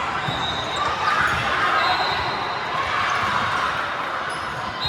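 Gymnasium sound during a volleyball match: balls bouncing and thudding on the court amid the steady echoing clatter and murmur of a large hall.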